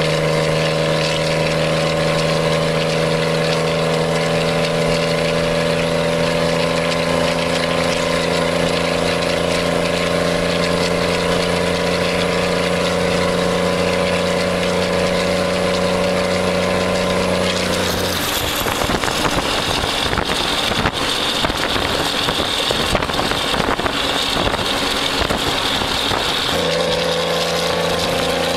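Straight-piped diesel truck engine heard from inside the cab, droning steadily at one speed while cruising. About two-thirds of the way through it gives way to a rougher, noisier rumble for several seconds, and the steady drone returns near the end.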